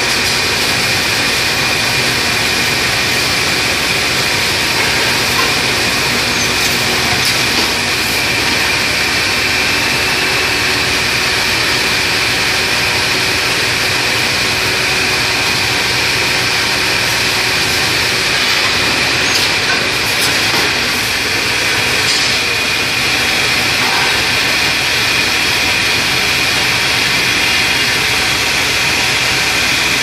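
Automated wheel-rim washing machine running: a steady, loud hiss with a constant high whine, and a few faint clicks.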